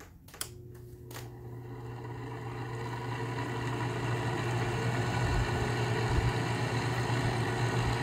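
Goldstar WG5004 window air conditioner's fan motor starting on low speed: a couple of clicks from the rotary switch, then a steady low electrical hum with rushing air that builds gradually as the fan spins up.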